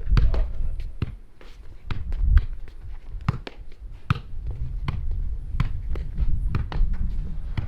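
Footsteps and light thuds of people training, a few irregular knocks a second over a low rumble.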